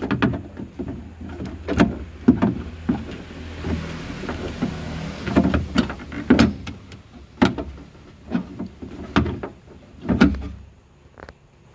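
Metal slide rail inside a car door being twisted and worked out through the door opening: repeated irregular knocks and clanks, with a stretch of scraping near the middle.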